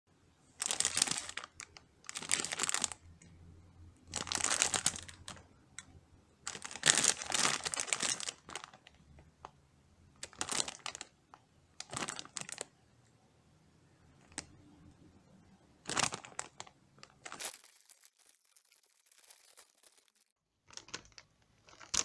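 Metallized plastic cookie bag crinkling as it is handled and turned over, in repeated bursts of rustling with short pauses between.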